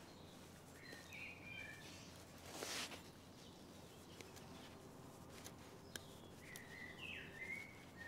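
Swiss Army knife blade shaving wood: one short scraping cut about two and a half seconds in, with a few faint clicks later. A bird chirps twice in the background, once near the start and once near the end.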